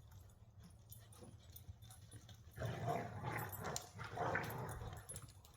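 A dog giving a series of short calls, starting about halfway through, over a steady low hum.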